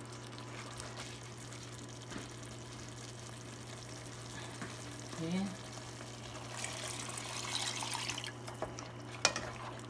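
Wooden spatula stirring a thick goat stew in a pot. About six and a half seconds in, water is poured from a bowl into the stew for a couple of seconds, followed by a single sharp knock near the end. A steady low hum runs underneath.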